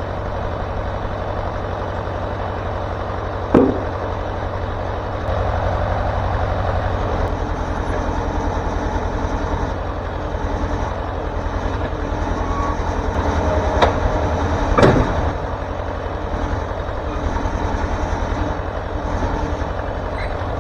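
Wood-Mizer LT40 Super Hydraulic sawmill running steadily, its engine droning, with three sharp metallic knocks: one about 3 s in and two close together near 14 to 15 s.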